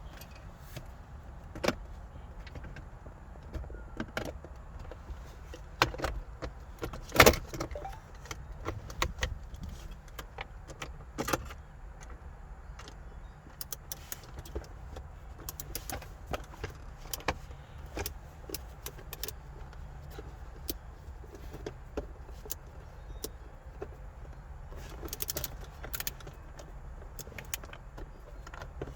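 Scattered clicks, clinks and knocks of hands and tools fitting car interior parts back together, over a steady low rumble. The loudest knock comes about seven seconds in.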